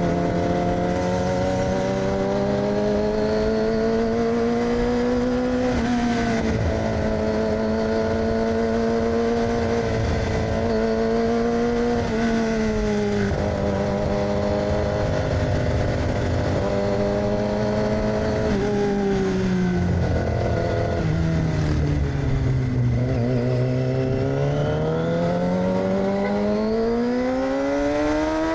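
2006 Yamaha R6's inline-four engine with an AR aftermarket exhaust, heard while riding. It holds a fairly steady pitch with small throttle changes, drops low for a moment near the end, then revs up smoothly as the bike accelerates.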